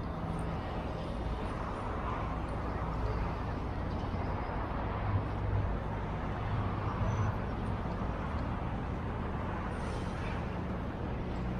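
Large diesel vehicle engine idling: a steady low hum that swells a little twice midway.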